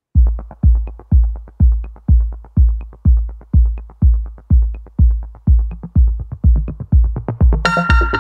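Electronic dance music: a deep bass kick about twice a second with a light tick about once a second, and a bright synth melody coming in near the end.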